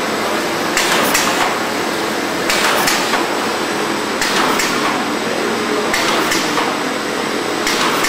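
Abrasive-pad cutting sheeter and stacker running in automatic mode: a steady machine hum with a rhythmic cycle of sharp mechanical clacks, two in quick succession about every 1.7 seconds.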